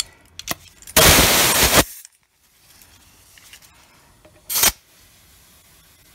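Compressed air hissing through a tire chuck into a truck tire's valve stem to reinflate it after a puncture plug: one burst of a little under a second, then a short second burst about three and a half seconds later.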